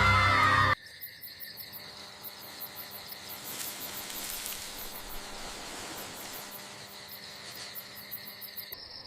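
Crickets chirping, a rapid high trill pulsing in regular clusters over a faint steady background. The chirping takes over abruptly under a second in, when a loud shout-like call cuts off.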